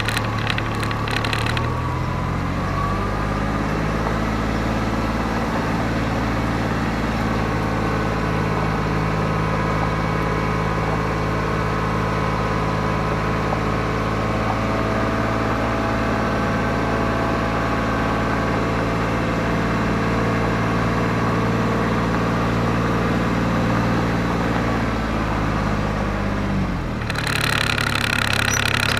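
A diesel engine running at a steady speed. Its pitch rises about two seconds in, holds there, and drops back near the end, when a rattling noise comes back in.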